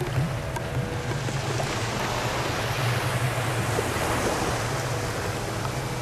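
Sea surf washing onto a sandy beach, swelling about three to four seconds in, with wind and a low steady hum underneath.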